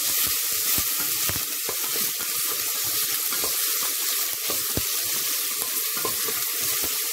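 Chopped garlic and onion frying in hot oil in a stainless steel pot: a steady sizzle with scattered crackles as the onion starts to brown.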